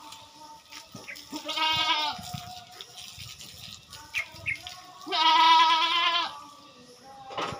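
Goat bleating twice, two long quavering calls about three seconds apart, the second the louder.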